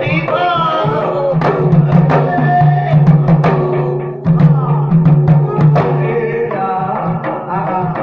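Rajasthani folk ballad singing by male voices over a steady low drone, with sharp hand-struck percussion strokes from large clay pots.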